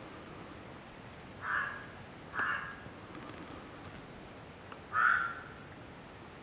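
Three short animal calls, two close together and a third about two and a half seconds later, over a steady background hiss.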